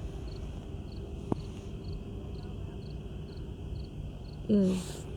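Crickets chirping: a steady high buzz with short chirps about twice a second. A woman's voice sounds briefly near the end.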